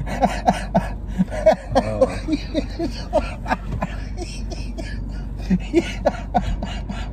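Two men laughing hard in a car cabin, in short, irregular bursts.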